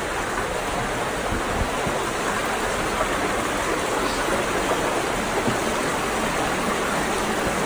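A stream of water rushing and splashing down over a jumble of boulders in a small waterfall, a steady rush of falling water.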